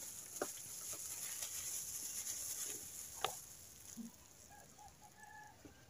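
Faint handling noise from gloved hands working a rapid diagnostic test kit: plastic gloves and paper packaging rustling, with small clicks and one sharp click a little over three seconds in. A few faint, short animal calls come near the end.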